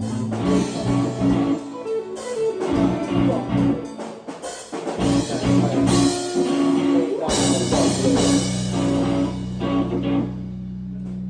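Live rock band with guitar, bass and drums playing, then a crash and a long held final chord that rings out to the end of the song.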